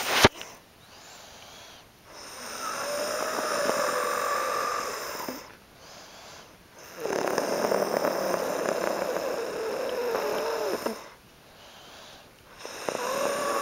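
A man snoring in his sleep: long, buzzing snores of three to four seconds each, coming about every five seconds with quieter breaths between. A sharp click sounds right at the start.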